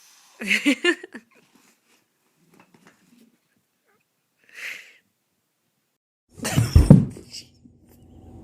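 A cat's short call about half a second in, a brief hissing puff near the middle, and a loud thump with deep energy about two-thirds of the way through.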